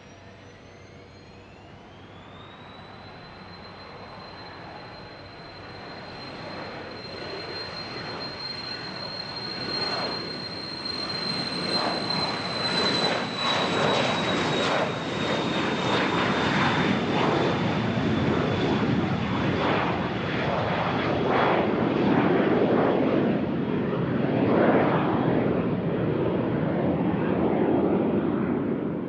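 Jet aircraft's turbine engines spooling up with a rising whine over the first few seconds, then holding a steady high whine while the engine rumble grows steadily louder as the jet powers up and rolls for takeoff. The sound is loudest over the last half and cuts off suddenly at the end.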